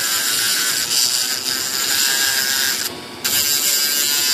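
A rotary tool's cut-off wheel grinding the cut end of a metal pushrod wire, smoothing it flush: a loud, high hissing grind. It breaks off for a moment about three seconds in, then starts again.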